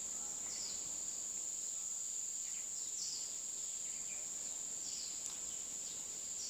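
Steady high-pitched drone of forest insects, with a short falling chirp repeating every second or two.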